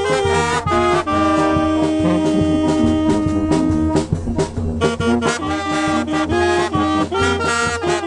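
Brass band music with a trumpet played up close: a lively tune over a steady low bass, with one long held note from about a second in to about four seconds in.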